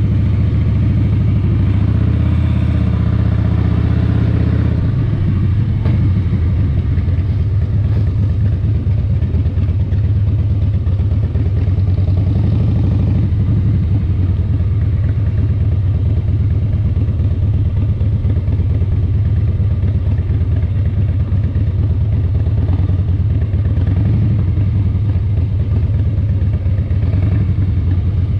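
Vehicle engine running steadily and close, with a fast, even low pulse.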